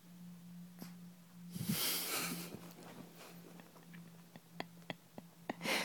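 Yorkshire terrier snuffling and moving close to the microphone: a loud breathy puff about two seconds in and a shorter one near the end, with a scatter of small clicks between them.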